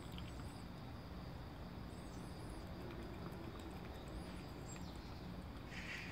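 A stray cat eating wet food from a bowl, with small wet chewing and lapping clicks over a steady low hum. Faint high chirps come and go, and there is a short hiss near the end.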